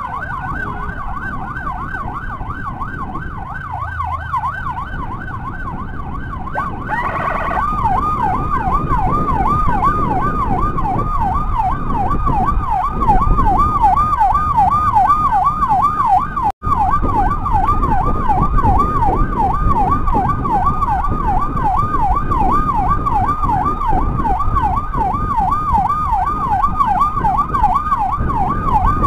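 Electronic emergency siren in a fast yelp, its pitch sweeping up and down about three times a second, over motorcycle engine and road noise. It gets louder about seven seconds in and cuts out for an instant about two thirds of the way through.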